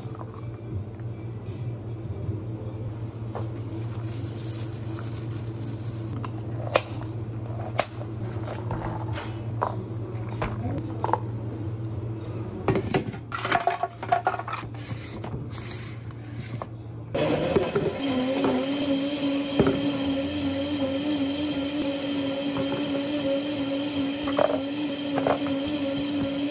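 Plastic cups, dome lids and a paper cup sleeve being handled on a counter: scattered taps, clicks and knocks over a steady low hum of café equipment. About two-thirds of the way in the sound changes abruptly to a louder, steady machine drone.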